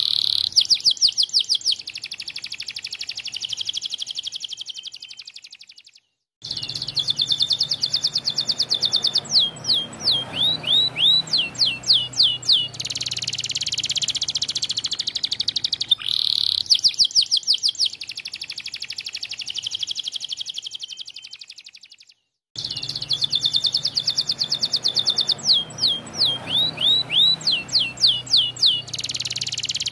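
White domestic canary singing a long, vigorous song of rapid trills and quick sweeping notes, the same phrases coming round again. The sound cuts out abruptly for a moment twice.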